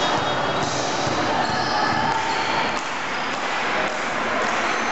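A volleyball bounced on the gym floor before a serve, over chatter from spectators in the hall.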